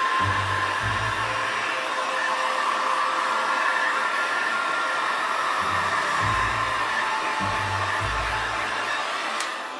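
Heat gun blowing a steady rush of hot air, heating a decoupage plate's crackle finish so that cracks form.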